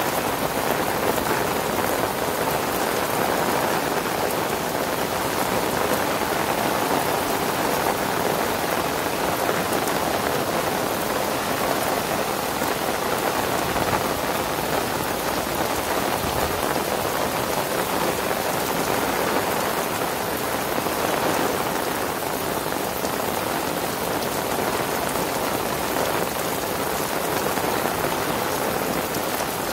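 Heavy rain pouring steadily onto wet wooden decking and pond water, easing very slightly about two-thirds of the way through.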